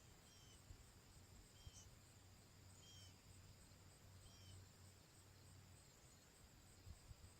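Near silence: faint outdoor ambience with a low hum and a small high chirp repeating about every second and a half, four times in the first half.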